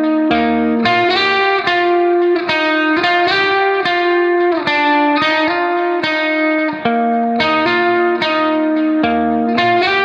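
Background music: a plucked guitar tune, with notes picked in a steady run.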